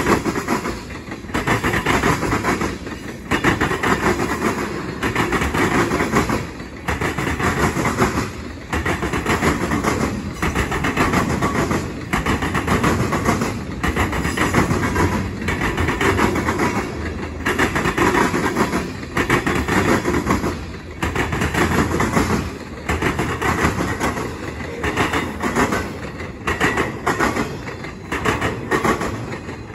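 Freight cars rolling past: tank cars, gondolas and empty intermodal well cars, their steel wheels clattering over the rail joints in a steady rhythm. The loudness swells and dips about every two seconds as the cars go by.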